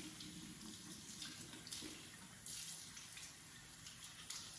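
Faint tap water running into a sink, the stream splashing unevenly as bulb roots are rinsed under it to wash the compost off.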